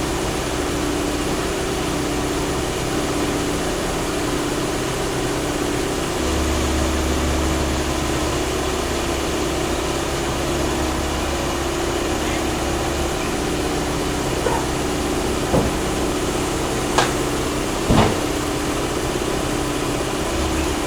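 Hitachi 138 excavator's diesel engine running steadily, with a deeper drone from about six to thirteen seconds in. A few sharp knocks come in the last third.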